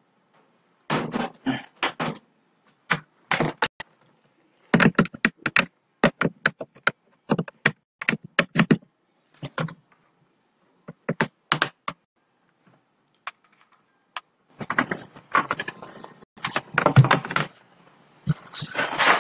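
Irregular clusters of sharp clicks and taps from a laptop being typed on and handled close to its built-in microphone, with silent gaps between them. In the last few seconds this turns into denser rustling and bumping.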